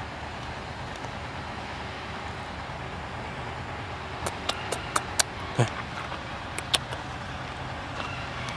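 Steady outdoor background noise with a low hum and hiss. A run of sharp clicks and one short falling tone come about four to seven seconds in.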